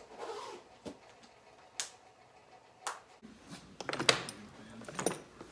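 A few separate knocks and clicks, then from about three seconds in a dense jingling clatter of metal buckles and bit as a leather bridle is lifted off its hook.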